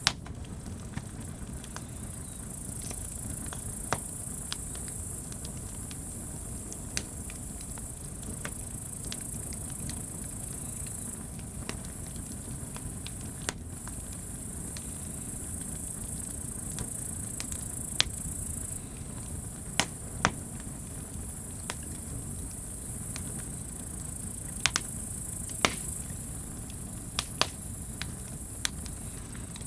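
Wood campfire crackling, with sharp irregular pops every second or two over a low steady rumble.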